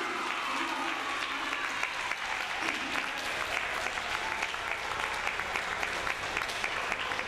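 Audience applauding, many hands clapping steadily in a hall.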